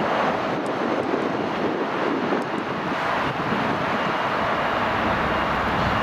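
Steady rushing roar of the Interislander ferry Kaitaki's engines as it manoeuvres close to the terminal, mixed with wind buffeting the microphone.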